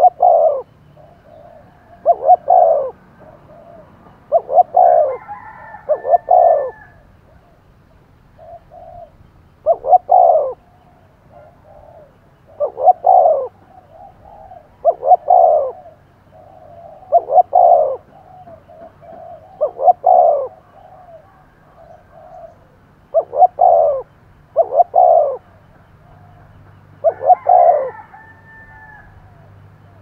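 Caged decoy spotted dove cooing over and over: loud coos in groups of two or three every two to three seconds, with softer notes between. It is the intense calling used to provoke wild spotted doves into calling back.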